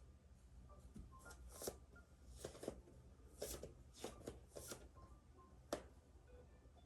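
Quiet rustling and brushing of clothing against a floor mat as a person moves through a full prostration bow, in a series of short soft swishes, with one sharp tap near the end.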